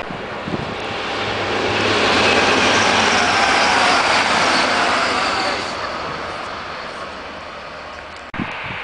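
Passenger train passing at speed: a rush of wheel and air noise that builds over the first two seconds, holds, then fades away, cut off suddenly near the end.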